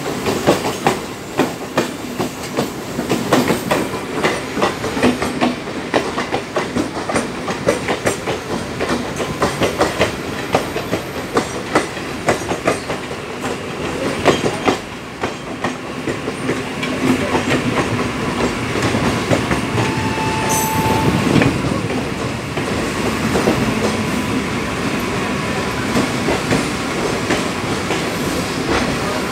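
Wheels of an Indian Railways passenger train clattering over rail joints and points at low speed, heard from an open coach door. Fast, irregular clickety-clack clicks fill the first half, then settle into a steadier rumble. A short high tone sounds about two-thirds of the way through.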